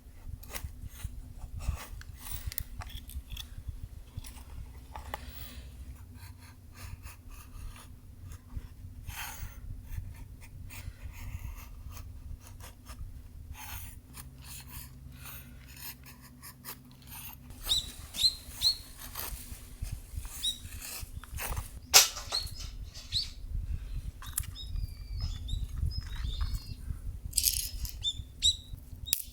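Irregular clicks, taps and knocks, the loudest about two-thirds of the way through, over a low rumble. Short high bird chirps come in the second half.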